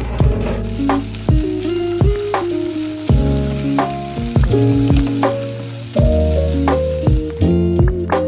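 Diced potatoes sizzling as they fry in oil in a frying pan. The sizzle starts about half a second in and fades out near the end, under louder background music.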